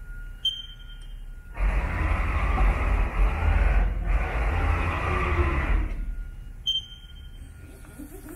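Two short electronic beeps about six seconds apart, and between them about four seconds of loud rushing, rumbling machine noise that breaks off briefly in the middle.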